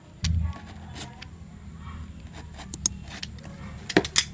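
Utility knife cutting through the packing tape and cardboard of a carton, with scratchy scraping strokes and a low thump of handling about a quarter second in. Several sharp clicks near the end.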